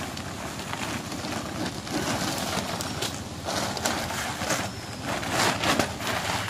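Black plastic tarpaulin rustling and crinkling irregularly as it is lifted and rubbed down with a cloth.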